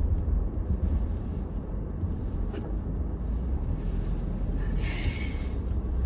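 Low, steady rumble of a car's engine and tyres heard from inside the cabin as it drives slowly. A brief higher hiss comes about five seconds in.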